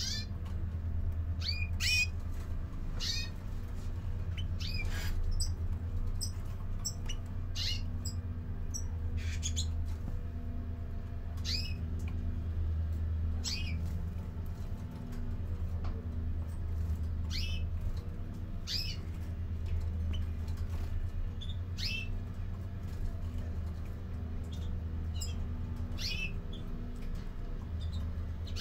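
Caged European greenfinches calling: short high chirps, one every second or two, over a steady low hum.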